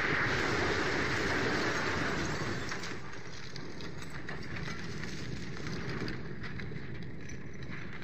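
Rumbling noise of a car burning after a bomb blast, loudest at first and easing after about three seconds into a steadier, lower rumble.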